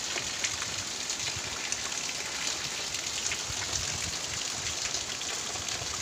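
Heavy rain falling steadily on foliage and ground: an even hiss with faint scattered drop ticks.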